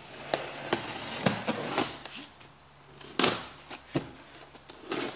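Cardboard shipping box being cut open with a utility knife: scraping and tearing of packing tape and cardboard, with several sharp knocks and clicks, the loudest about three seconds in.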